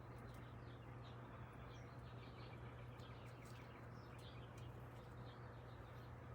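Faint chirping and twittering of small songbirds, many short calls throughout, over a steady low hum.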